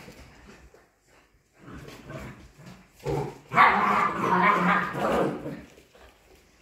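55-day-old Polish Hunting Dog puppies barking in play, with a few scattered sounds at first and then a loud, continuous run of barking for about two seconds past the middle.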